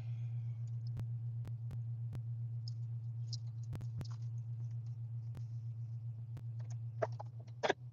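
Low steady hum inside a parked car, with scattered faint clicks and a few short rustling sounds near the end.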